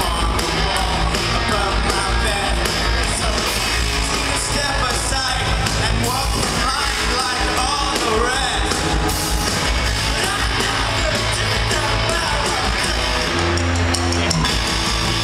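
A rock band playing live at full volume, with electric guitars, drums and a singer's vocals, heard from within the audience.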